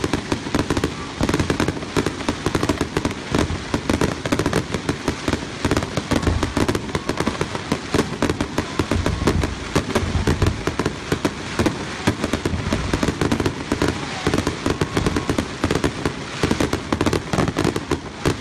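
Aerial fireworks going off in a rapid barrage: many bangs a second, mixed with crackling, without a break.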